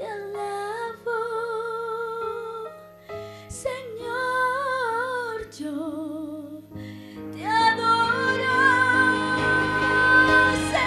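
Female solo singer performing a Christian praise song over instrumental accompaniment, holding long notes with wide vibrato. About seven seconds in the accompaniment swells and she belts a long sustained high note.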